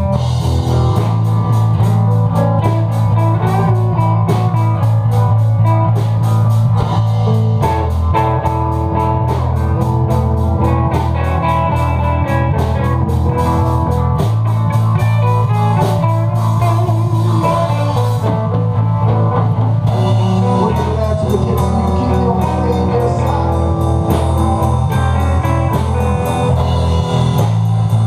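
A live blues jam band playing: guitar over bass and drum kit, with a heavy, dominant low end whose bass note moves every six or seven seconds.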